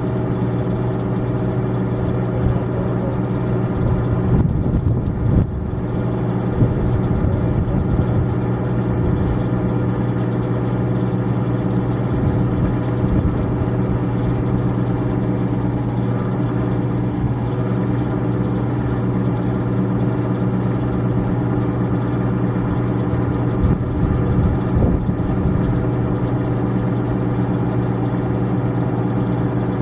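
A steady, low hum with an unchanging pitch, like an idling engine or a running motor. There are brief irregular disturbances about four to six seconds in and again around twenty-five seconds.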